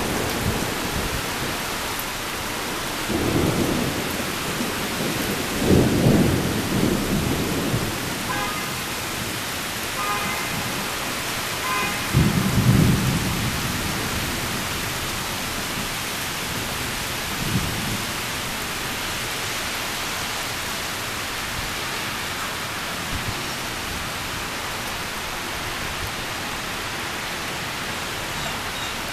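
Steady heavy rain with thunder rumbling several times, the strongest rolls about 6 and 13 seconds in and a weaker one near 18 seconds.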